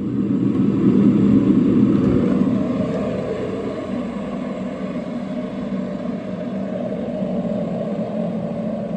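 Electric kettle heating water: a steady rumbling hiss with a low hum, loudest in the first couple of seconds and then easing slightly.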